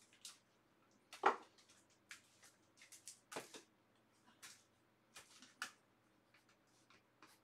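Faint, scattered clicks, taps and light knocks of cards and card holders being handled while someone searches for a card, the loudest knock about a second in.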